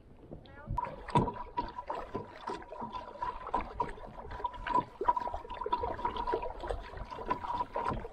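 Kayak paddling: a double-bladed paddle dipping and splashing in the water stroke after stroke, with small knocks and drips. From about a second in, a thin steady high tone runs under it.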